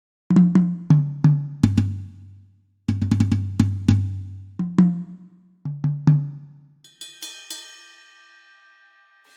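Sampled drum kit from Addictive Drums 2 being sound-checked: several fills of tom hits stepping down from the high toms to the floor toms. From about seven seconds in come a few cymbal strikes that ring on and fade.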